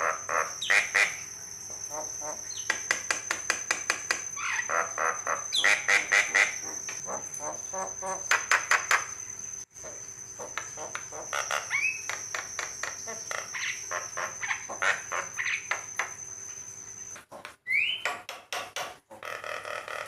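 Javan myna (jalak kebo) singing a varied song of fast rattling clicks and harsh chatter, broken now and then by short upward-sliding whistles. A steady high-pitched whine runs underneath until near the end.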